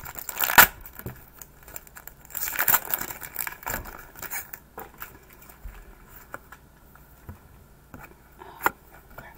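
Foil Pokémon booster-pack wrapper crinkling and being torn open, in loud bursts about half a second in and again from about two to four and a half seconds. Quieter rustling as the trading cards are handled follows, with one sharp click near the end.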